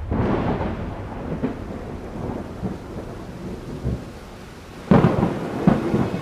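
Thunder with a rain-like hiss. A rumble starts at once and slowly fades, and a second, sharper crack of thunder comes about five seconds in.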